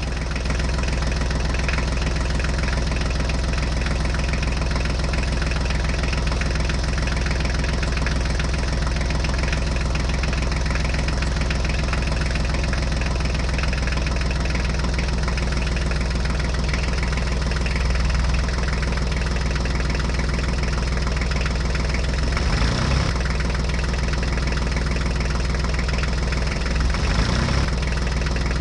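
Dubbed sound effect of a tractor engine idling steadily.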